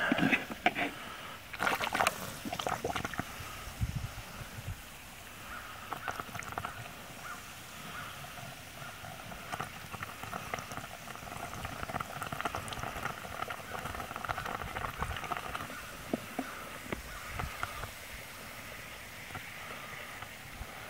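Baking soda water trickling through a plastic funnel into the cells of a drained lead-acid battery, fizzing and crackling steadily as it neutralizes the leftover sulfuric acid. There are a few light knocks about two seconds in.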